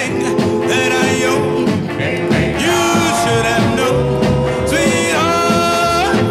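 A song: singing over instrumental backing, with a long held note near the end.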